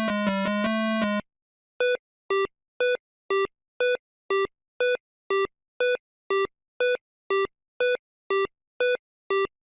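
Electronic synthesizer music stops about a second in. After a short pause comes a run of short electronic beeps, about two a second, each a quick two-note tone, like a busy signal.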